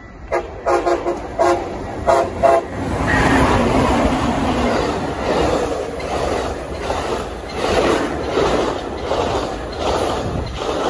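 Train horn sounding several short blasts in the first few seconds, each a chord of several tones. Then the train rolls past with a steady loud rumble and wheel clatter.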